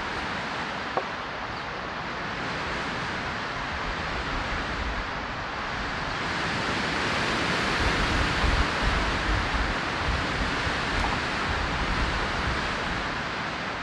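Strong wind of about 50 miles an hour blowing and buffeting the microphone with a steady rushing noise, gusting harder a little past halfway.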